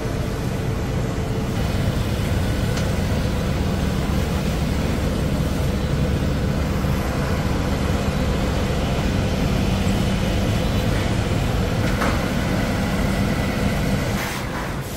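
Fire engine running steadily with a constant low hum, under a broad hiss, dropping away near the end.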